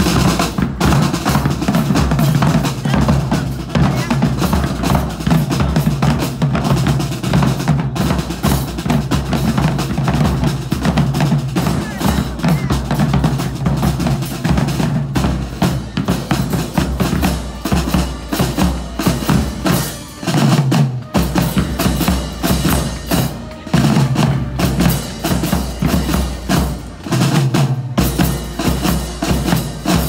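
A marching drumline playing a cadence: snare drums and bass drums struck in a dense, loud, driving rhythm, with cymbals.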